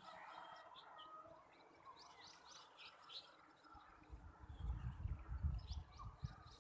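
Faint birds chirping in short high calls. From about four seconds in there is a louder low rumbling that lasts a couple of seconds.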